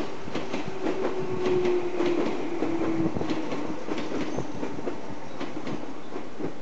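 A train passing over the level crossing, its wheels clattering over the rail joints. A steady tone sounds with it, falling slightly in pitch and fading out about three seconds in.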